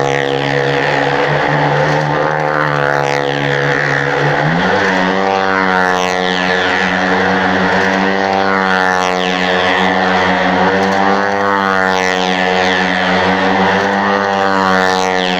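A motorcycle engine running hard as it rides round the wall of a well-of-death, a wooden stunt cylinder. The note steps up about four and a half seconds in, then rises and falls in pitch again and again as it circles.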